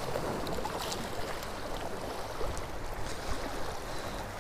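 Steady wind noise on the microphone in strong gusty wind, with choppy water washing underneath and a few faint clicks.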